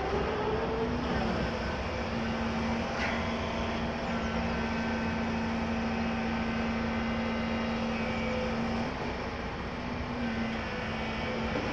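Volvo EC300 excavator's diesel engine running steadily as it works, with a held hum that eases about nine seconds in. A short knock comes about three seconds in.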